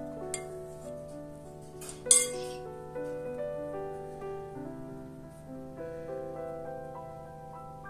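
Gentle background piano music, with a few sharp clinks of a metal spoon against a glass mixing bowl; the loudest clink comes a little after two seconds in.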